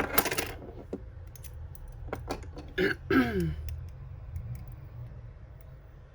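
Pieces of costume jewellery clicking and clinking lightly as they are handled, a few separate small clicks. About three seconds in comes a short throat-clearing sound that falls in pitch.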